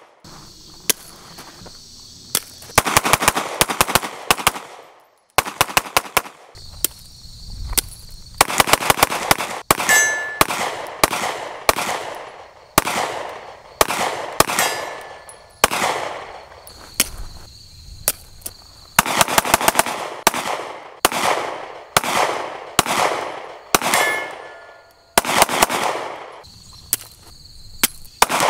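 Glock 43X 9mm pistol firing strings of quick shots, each a sharp crack with an echoing tail, with short pauses between strings. A few brief metallic pings ring out among the shots.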